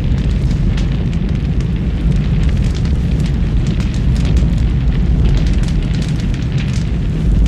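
A large fire burning, with a steady low rumble and frequent sharp crackles and pops.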